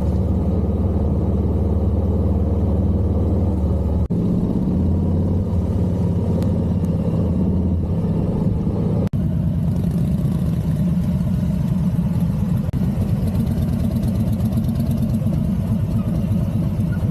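Harley-Davidson Street Glide's V-twin engine running with a deep, pulsing note, the sound changing abruptly at edits about four and nine seconds in.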